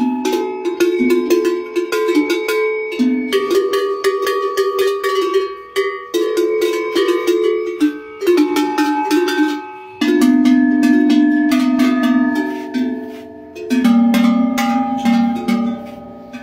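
Turkish livestock bells of the kazan kelek and kaba çan kind, shaken so that they clang and jangle in quick, overlapping strikes, each ringing on. The set of bell tones changes a few times, most clearly about ten seconds in, where lower-pitched bells take over.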